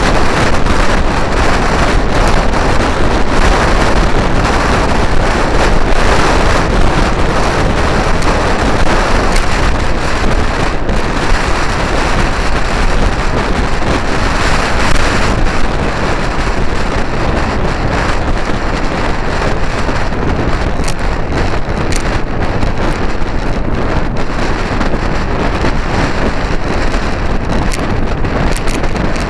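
Steady, loud wind rush buffeting the microphone while riding a Vespa GTS scooter in traffic, with road and engine noise underneath.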